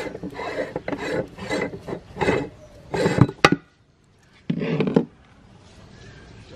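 Rasping scrapes of metal and crumbs on a hand-cranked meat grinder as its parts are handled, about two strokes a second with a few sharp clicks. They stop for about a second, then one last scrape.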